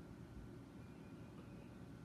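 Near silence: faint steady low hum of room tone.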